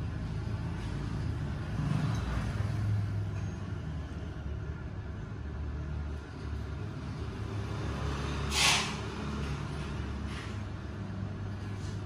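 Low steady background rumble, with a short sharp hiss about two-thirds of the way through.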